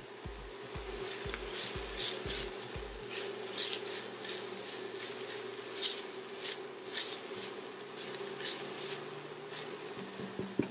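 Red silicone spatula scraping and stirring diced onion and peppers sautéing in oil across the bottom of an enamelled pot: a quick series of short scrapes, about two a second.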